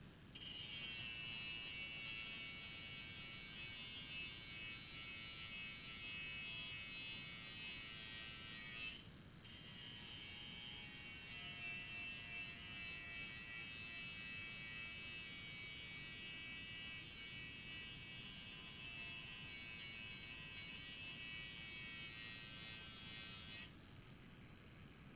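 Grinder sharpening a steel lawn mower blade, heard faintly with the sound turned down: a steady whining grind that breaks off briefly about nine seconds in, then runs on until about a second and a half before the end.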